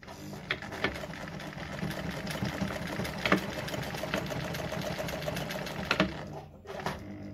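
Brother Pacesetter ZZ2-B702F sewing machine running, stitching one side of a buttonhole (step B of its four-step buttonhole) through denim, the needle going in a fast, even rhythm. It stops near the end.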